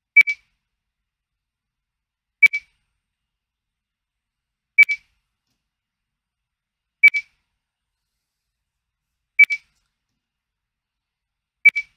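Computer measurement software beeping: six short, high-pitched double beeps, evenly spaced a little over two seconds apart. Each beep marks the CMM probe touching off as the next edge point in the series is measured.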